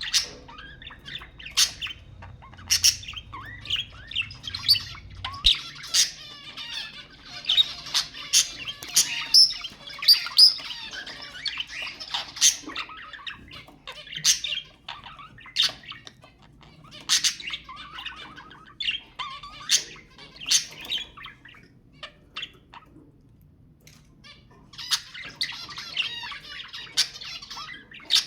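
Budgerigars chattering and warbling, broken by sharp squawks and chirps; the flock falls quiet for a couple of seconds near the end, then starts again.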